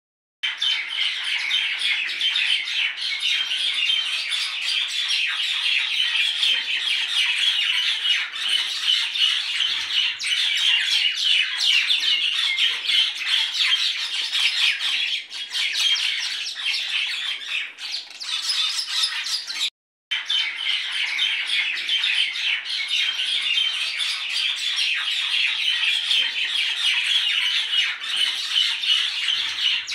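Many birds chirping in a dense, unbroken chatter, cut off for a split second about twenty seconds in.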